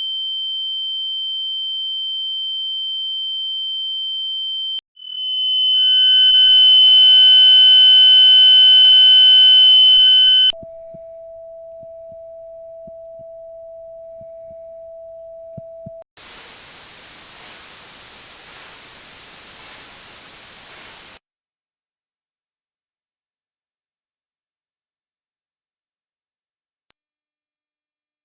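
A sequence of synthetic tinnitus-simulation sounds, each lasting about five seconds and switching abruptly: a steady high-pitched tone, then a louder buzzy tone with many overtones, then a quieter, lower steady tone, then a hiss with high ringing tones in it, then a very high tone that fades in, and another high tone near the end.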